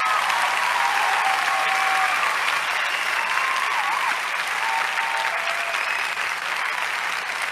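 An audience applauding steadily, with faint pitched sounds mixed into the clapping.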